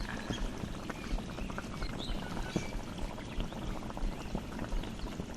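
Pot of water at a boil, bubbling steadily with many small pops.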